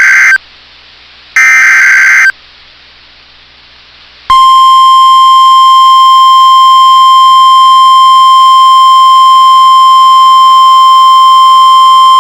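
NOAA Weather Radio Emergency Alert System tones: the end of one SAME header data burst and one more short burst about a second later, then a short pause of hiss. The steady 1050 Hz warning alarm tone then starts about four seconds in and is held for about nine seconds. It signals that a warning is about to be read.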